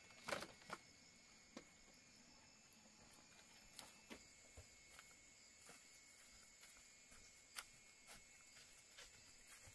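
Near silence: a faint steady high hum with scattered light clicks and taps, the loudest just after the start.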